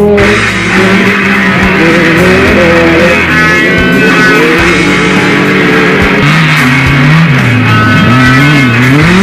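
Rock music with electric guitar playing as a soundtrack.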